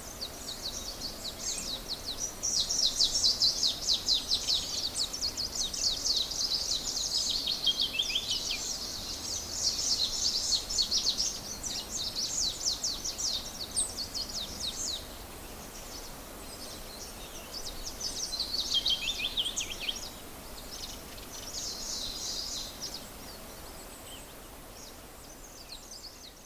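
Morning bird chorus: small birds chirping in rapid, high twittering runs, densest through the first half, with a few more bursts later and thinning near the end, over a faint background hiss.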